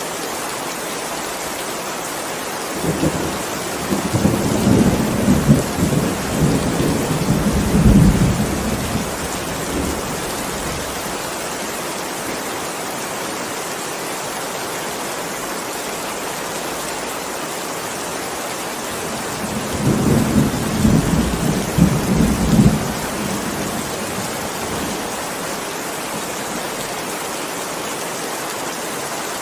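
Heavy rain falling steadily, with two rolls of thunder: a long low rumble starting about three seconds in and lasting several seconds, and a shorter one about two-thirds of the way through.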